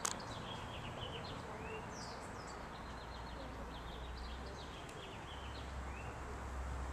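Small birds chirping, with runs of quick short chirps and a couple of brief rising notes, over a steady low rumble. A single sharp click comes right at the start.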